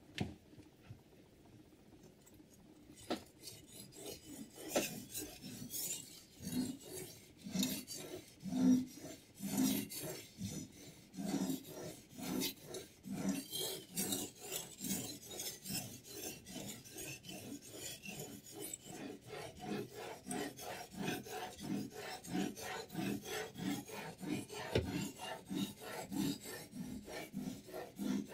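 A sharpening stone rubbed back and forth along a knife blade in a Hapstone T1 guided sharpener. Quick, regular rasping strokes begin about three seconds in and keep going.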